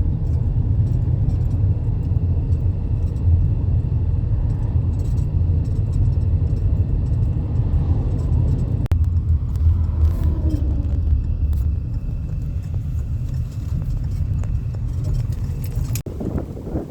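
Car driving: a steady low rumble of engine and road noise, with a couple of faint clicks.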